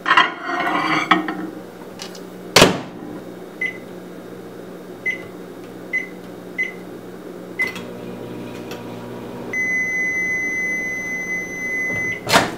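A bowl is set onto the glass turntable of a microwave oven and the door shuts with a sharp clunk. Five short keypad beeps follow, then the oven runs with a low hum. Near the end a long, steady end-of-cycle beep sounds and the door latch clunks open.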